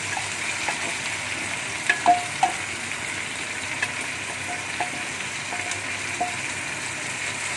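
Freshly washed mustard greens and chicken frying in hot oil in a pan: a steady sizzle, with a few sharp knocks and short scraping squeaks of a spatula stirring against the pan, the loudest about two seconds in.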